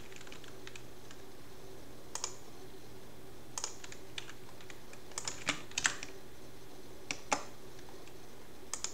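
Scattered computer keyboard keystrokes and clicks, singly and in small clusters with pauses between, over a faint steady hum.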